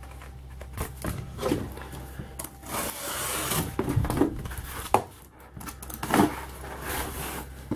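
A cardboard shipping box handled on a table: several knocks as it is picked up, turned and set down, with a scraping rub about three seconds in.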